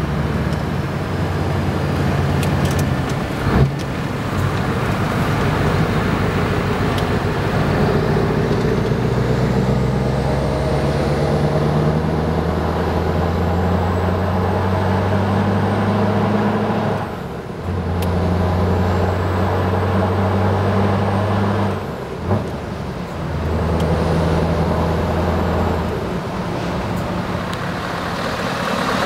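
Scania R 500 V8 diesel engine with open exhaust stacks, pulling away through the gears, heard from inside the cab. The engine note climbs slowly, then drops off and picks up again at gear changes, about two thirds of the way through and again a few seconds later.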